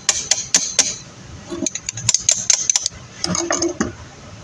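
Metal parts of a Subaru starter motor clicking and clinking as the solenoid is fitted onto the motor housing by hand, in three quick runs of sharp taps.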